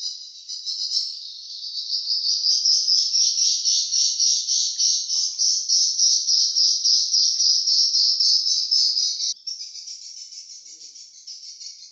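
Edible-nest swiftlets twittering: a dense, high-pitched chattering trill pulsing several times a second. It drops sharply in level about nine seconds in and goes on fainter.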